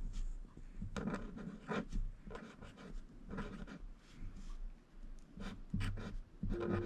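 Felt-tip marker writing on lined paper: a run of short pen strokes, irregularly spaced with brief pauses between them.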